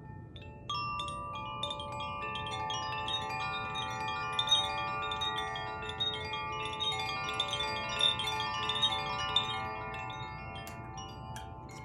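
The water and air Elemental wind chimes played together: many overlapping metallic tones struck again and again and ringing on. They begin about a second in, build into a dense layered shimmer, and thin out near the end.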